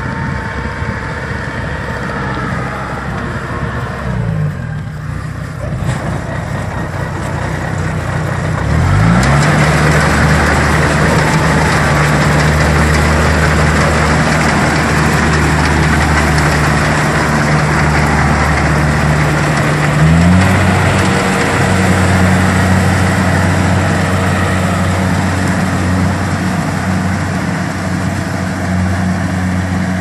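Kubota DC-70 rice combine harvester running while it harvests, its diesel engine giving a steady low note. About nine seconds in the note rises in pitch and grows louder, with a rushing noise over it. It rises again about twenty seconds in.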